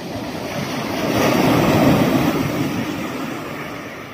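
A wave breaking and washing up the beach: a rush of surf that swells to its loudest about two seconds in and then dies away.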